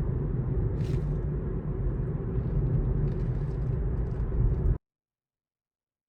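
Steady low road and tyre rumble inside a moving Tesla Model 3 electric car, with no engine sound, cutting off abruptly to complete silence near the end.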